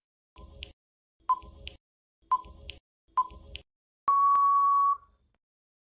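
Quiz countdown timer sound effect: four short beeps about a second apart, then one longer, louder steady beep lasting about a second that marks time up.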